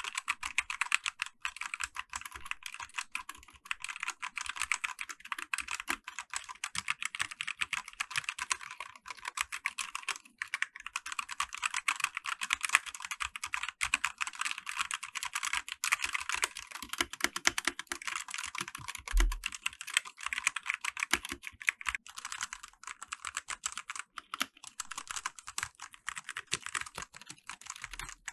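Continuous fast typing on a Mechanite K500W mechanical keyboard with Huano brown tactile switches and built-in silicone sound dampening: a steady stream of key clicks, fairly quiet.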